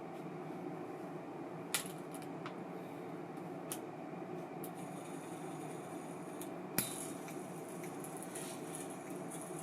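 Small sharp metallic clicks from handling an ABU Ambassadeur 2500C baitcasting reel, three plain ones with the loudest about seven seconds in, over a steady low whir.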